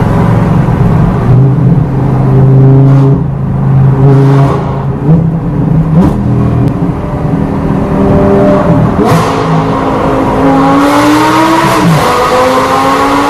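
Lamborghini Gallardo LP560-4's V10 with an Armytrix aftermarket exhaust, heard from inside the cabin while driving. It holds a steady pitch, jumps up sharply about six seconds in as if on a downshift, then climbs in pitch under acceleration and drops back with an upshift near the end.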